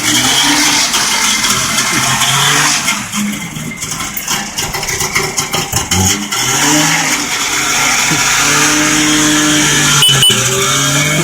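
Barkas van's two-stroke engine running, its pitch rising and falling as it revs.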